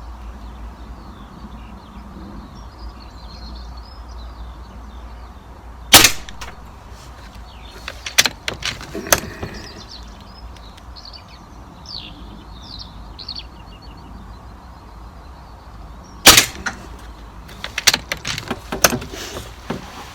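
Two air rifle shots about ten seconds apart, each a sharp crack, and each followed about two seconds later by a quick series of clicks and knocks from working the action to load the next pellet.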